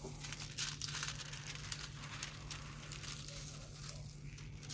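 Protective plastic film being peeled back off the sticky adhesive canvas of a diamond painting kit, crinkling and crackling with many small clicks.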